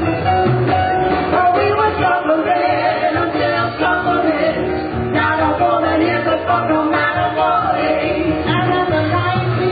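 Live music: a song sung with band accompaniment, with a bass line running underneath.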